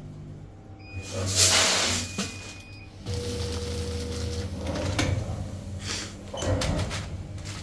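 Automatic weigh-and-fill pouch packing machine working through its cycle: a steady motor hum with two loud rushing bursts, about a second in and near the end, and a few sharp clacks in between as the sealing jaws work the pouch.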